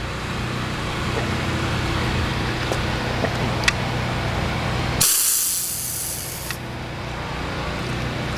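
Pressure washer running with a steady hum. About five seconds in a loud hiss of spray lasts for about a second and a half, then the steady hum returns.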